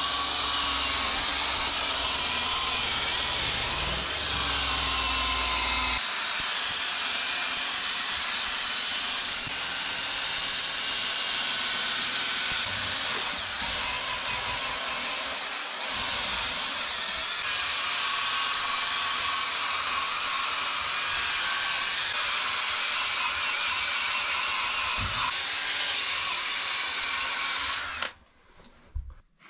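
A handheld cordless power tool running steadily while pressed against old log walls, abrading the weathered wood surface. It stops near the end.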